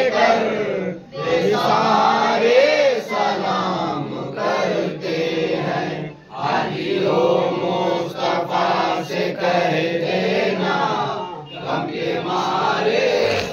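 A group of men chanting an Urdu devotional salaam to the Prophet together, in long, drawn-out sung lines with short breath breaks about every five seconds.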